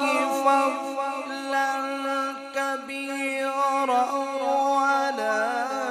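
A male qari chanting Quran recitation in the melodic style, drawing out long, ornamented notes with slow turns of pitch.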